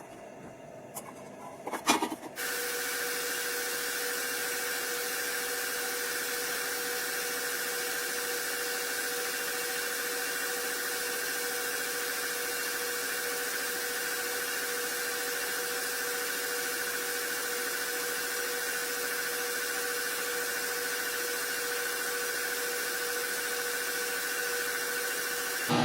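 A few light knocks, then a power tool starts abruptly about two seconds in and runs steadily, a hiss with an even, unchanging hum.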